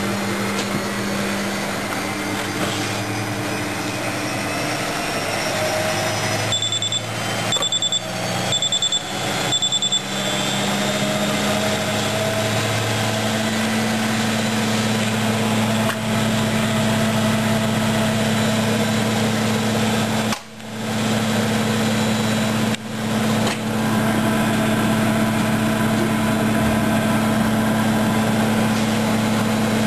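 Washing machine running with a steady motor hum. About seven seconds in it gives four short, high electronic beeps, roughly one a second.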